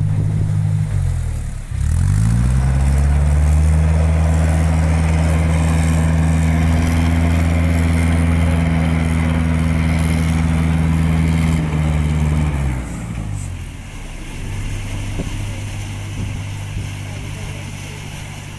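A canal narrowboat's diesel engine dipping in revs, then throttled up and held steady for about ten seconds before easing back near the middle to a lower, steady tickover as the boat manoeuvres.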